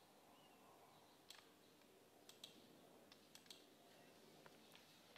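Faint computer mouse clicks over near-silent room tone. The clicks are scattered, starting about a second in and coming every half second or so after that.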